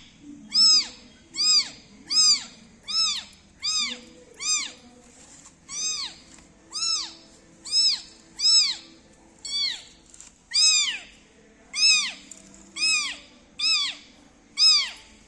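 A kitten meowing over and over, about sixteen short, high-pitched meows at roughly one a second, each rising then falling in pitch.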